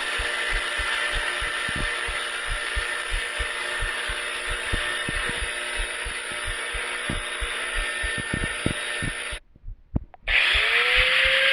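Electric metal grinder running with a steady grinding hiss and irregular low knocks. It cuts out about nine seconds in, and after a short gap a motor spins up, its whine rising and settling into a steady tone.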